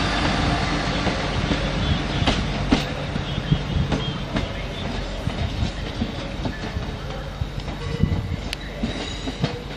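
Class 390 Pendolino electric train moving through the station, its wheels clicking over the rail joints in an irregular clatter. The rumble grows steadily quieter as the train draws away.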